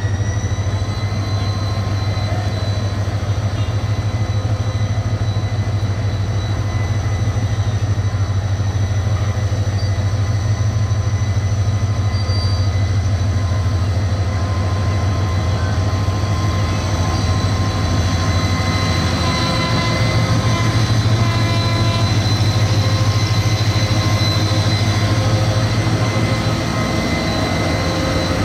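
Diesel-electric locomotive running close by: a steady low engine drone with a high-pitched whine that rises in pitch at the start, growing louder in the second half as the locomotive pulls past.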